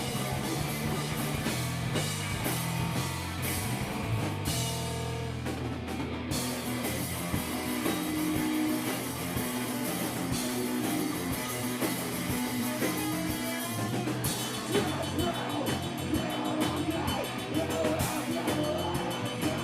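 Live rock band playing with electric guitar, bass and drum kit, cymbals crashing over sustained bass notes.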